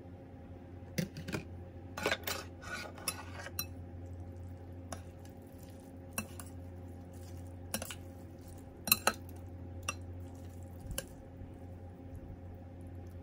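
Metal chopsticks and a spoon clinking and tapping against a ceramic noodle bowl and a plastic food container: scattered knocks with a cluster about two to three seconds in and the sharpest clink about nine seconds in, over a steady low hum.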